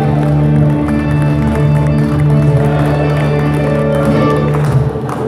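Live band with electric guitars playing, sustained chords over a steady bass note, the music breaking off near the end.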